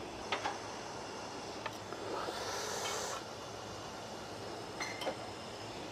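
Faint metallic clicks and taps of hand tools working on an engine's cylinder head during a valve stem seal replacement, with a brief hiss about two seconds in.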